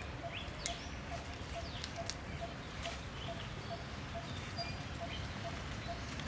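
Outdoor ambience: a bird repeats a short, low note about three times a second, with scattered brief high chirps and a few sharp clicks over steady low background noise.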